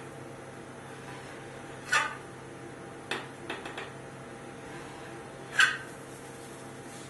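Steel ice cream scraper cutting strips through a frozen ice cream base on a rolled-ice-cream cold plate: short scraping strokes about two seconds in and again at five and a half seconds, the second loudest, with a few lighter taps and scrapes just after three seconds. A steady low hum runs underneath.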